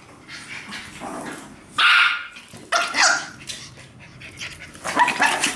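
Dogs barking during play, a few short barks in separate bursts, the loudest about two seconds in.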